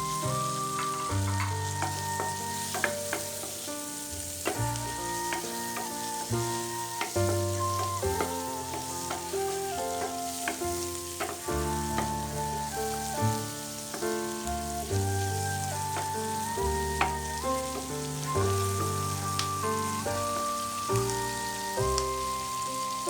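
Food sizzling steadily in a frying pan, with a few sharp clicks of utensils, under background music with a melody and bass line.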